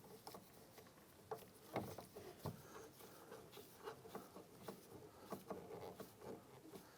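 Faint, irregular small clicks and ticks of a Torx screw being driven in and snugged down to hold a window crank handle on, with two slightly louder ticks about two seconds in.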